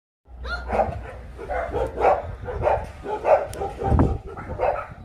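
Dogs barking in the shelter kennels, about seven barks spaced half a second to a second apart.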